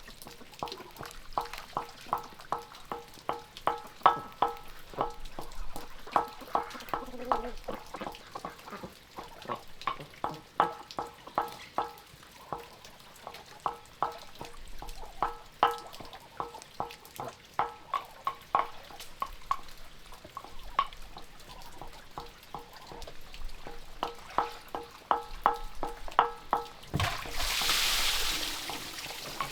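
Pestle pounding in a mortar, a run of sharp knocks about one to two a second, each ringing briefly. The pounding stops near the end and a short hissing rush follows.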